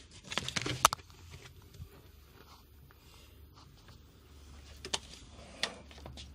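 Rustling with a few sharp clicks about half a second in, then two single clicks near the end, over a faint low steady hum: handling noises.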